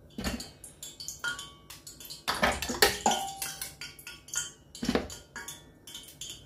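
A metal utensil clinking against a stainless-steel pot as pieces of boiled white yam are lifted out and dropped into a plastic food processor bowl. The knocks come irregularly, some with a brief metallic ring.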